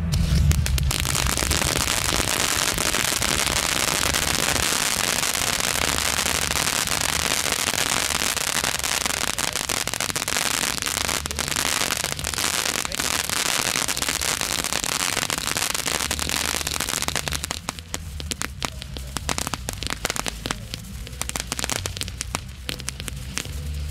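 Funke Teufels Fontäne crackling firework fountain burning: a dense hiss of fast crackles. About two-thirds of the way through it thins into sparser, scattered crackles as the crackling effect dies down.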